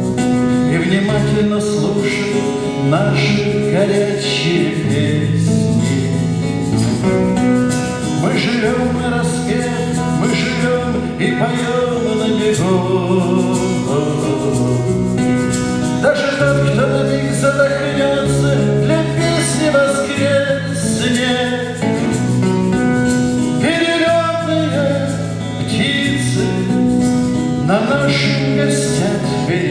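Male voice singing a song with guitar accompaniment, live and unamplified in a room.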